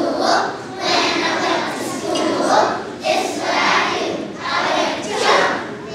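A large group of young schoolchildren singing together in unison, loud and phrase by phrase.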